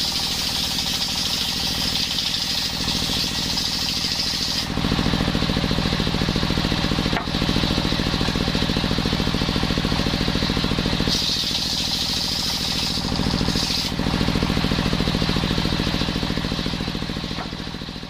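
Circular saw machine (serkel) running on coconut wood, its drive chugging with a steady, even pulse. A high-pitched cutting whine grows strong and eases off several times as the blade works through the wood. The sound fades out near the end.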